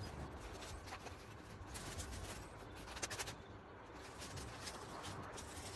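Dry grass and brush rustling and crackling as it is pulled up and handled by hand, with a run of sharper crackles about three seconds in.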